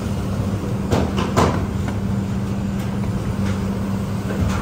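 Bakery dough divider and rounder machine running with a steady hum. A few sharp knocks come about a second in, and one more near the end.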